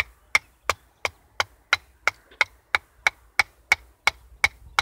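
Wooden baton striking the spine of a Cudeman 148M scandi-ground bushcraft knife in a steady run of sharp knocks, about three a second, driving the blade down through an upright length of branch to split it (batoning).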